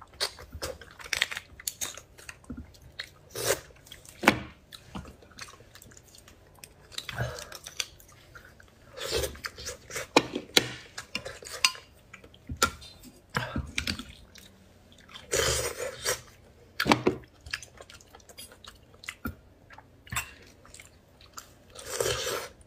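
Close-miked eating of beef bone marrow: wet chewing and sucking sounds, with irregular clicks from a metal spoon scraping inside the bones and tapping the bowl.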